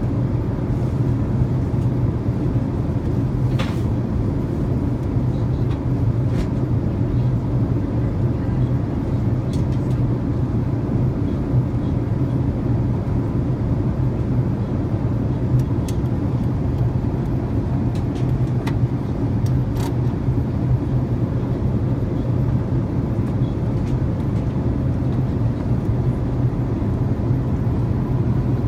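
Steady cabin noise of an Airbus airliner in flight: an even low rumble of engines and airflow, with a few faint ticks.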